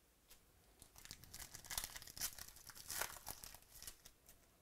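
Foil wrapper of a basketball trading card pack being torn open and peeled off the cards. A quick run of crinkling and tearing starts about a second in and dies away near the end.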